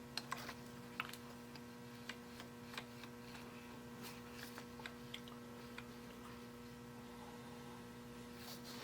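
Steady, faint electrical hum, with a scattering of light clicks and taps.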